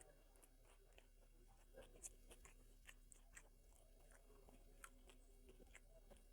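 A person chewing food, faint, with many small irregular clicks of the mouth.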